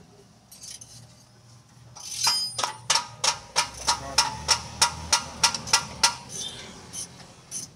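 Hammer striking metal: a steady run of about a dozen ringing blows, roughly three a second, starting about two seconds in and easing into lighter taps near the end.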